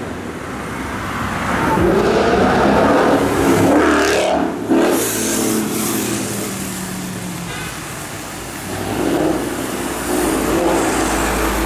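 2018 Ford Mustang GT's 5.0 V8 through a Corsa Xtreme cat-back exhaust, revving up hard with a sudden sharp report about four and a half seconds in. The engine then settles and climbs through the revs again near the end.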